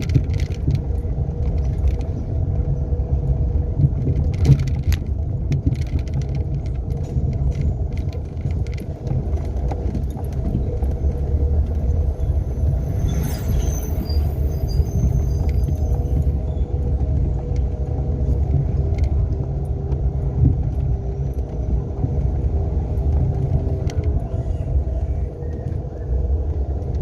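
Renault Sandero driving along, with a steady low rumble of engine and road noise. A brief high-pitched squeak comes about halfway through.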